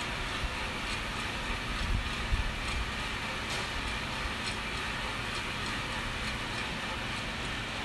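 Vina Roaster drum coffee roaster running: a steady rushing noise with faint ticks every half second to a second, and a few low thumps about two seconds in.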